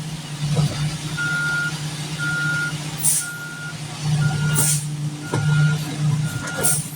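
Concrete mixer truck's diesel engine running with its reversing alarm beeping steadily, about once a second, as the truck backs up. There are a few short hisses in between.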